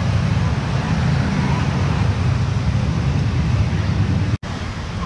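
Steady low rumble of outdoor vehicle and traffic noise. It cuts out for an instant about four seconds in, then carries on a little quieter.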